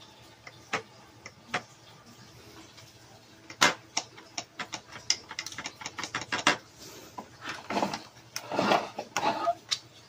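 The thermal cut-out reset button and plastic body of an upright vacuum cleaner being pressed and handled: scattered sharp plastic clicks, a quick run of them in the middle, and some rustling handling noise near the end. The motor does not start, since the cut-out only resets once the motor has cooled.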